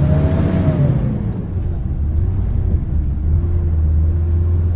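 Motor vehicle engine running with a steady low hum; a fainter tone rises and falls in the first second or so, then holds steady.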